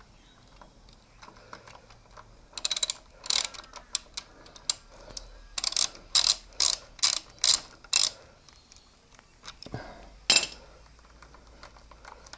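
Ratchet wrench clicking as it is worked back and forth to loosen bolts: a run of ratcheting strokes about two a second, then one more near the end.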